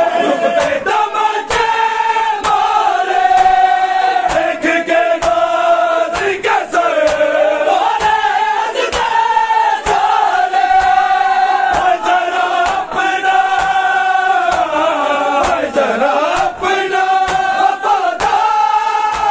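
Men's voices singing a Punjabi nauha together, a mourning lament. The singing is kept in time by a steady beat of hand strikes on bare chests (matam).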